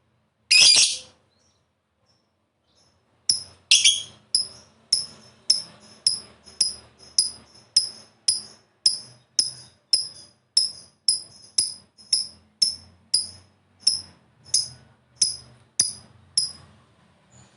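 Lovebird calling: one shrill call, then after a pause a long, even series of short, sharp high chirps at about two a second, the long 'ngekek' call that lovebird keepers prize.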